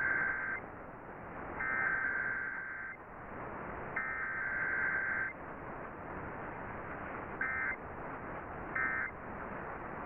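Emergency Alert System SAME digital data bursts over AM radio static: three header bursts, each a harsh warbling screech about a second long, then two short end-of-message bursts about a second and a half apart, with a third just starting at the end. Steady AM static hiss runs underneath.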